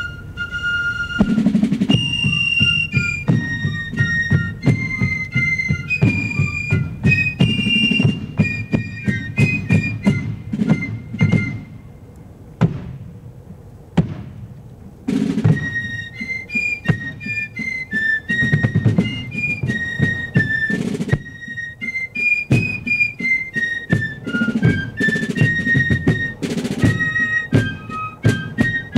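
Fife and drum corps playing a march: a high, shrill fife melody over snare and bass drum strokes, with a short break about halfway through before the tune starts again.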